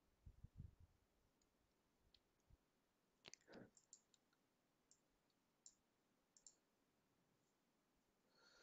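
Near silence with a few faint clicks of a computer mouse, a cluster about three seconds in and a couple more later.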